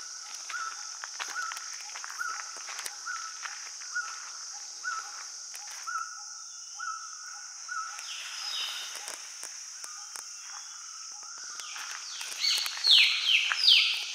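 Tropical forest ambience: a steady high insect drone, with a bird repeating a short rising note about every half second through the first half, and footsteps on a dirt trail. Near the end a few loud, shrill falling calls ring out.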